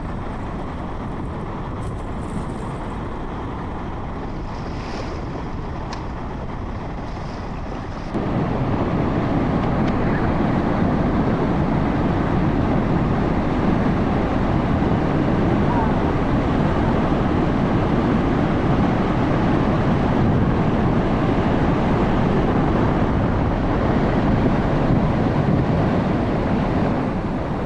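Muddy floodwater rushing and pouring over dam spillways in a steady torrent, with wind buffeting the microphone. It gets suddenly louder about eight seconds in.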